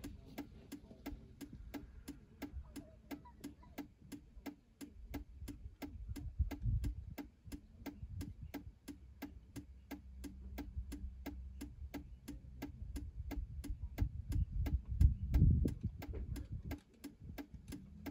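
A car's hazard-light flasher ticking steadily, about three clicks a second, heard inside the cabin. Under it a low rumble swells twice, about six seconds in and again, louder, about fifteen seconds in.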